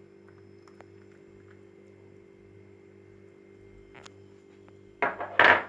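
Metal utensil clinking and scraping against cookware in a short, loud clatter about five seconds in, after a few faint clicks, over a steady low hum.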